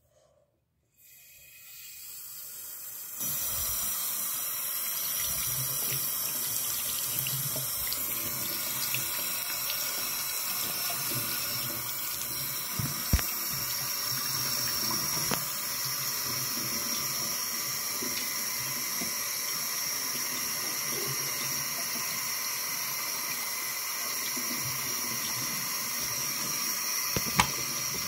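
Bathroom sink faucet turned on about a second in, the flow building to a steady full stream of running water splashing into the basin while hands are washed under it. A few sharp clicks stand out along the way.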